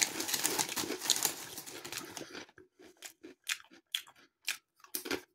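A hand rummages in a crinkly plastic crisp packet, then dry lattice-shaped potato snacks are chewed with sharp, hard crunches about twice a second.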